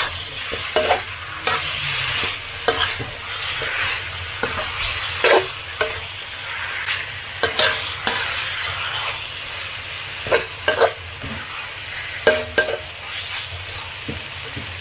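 Duck and holy basil stir-fry sizzling steadily in a pan, with a spatula scraping and knocking against the pan every second or so as it is tossed.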